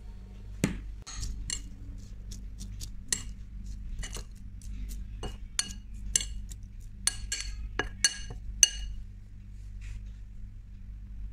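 Metal spoon clinking and scraping against a white ceramic plate while tossing sliced vegetables, a string of irregular sharp clinks with a brief ring, over a steady low hum.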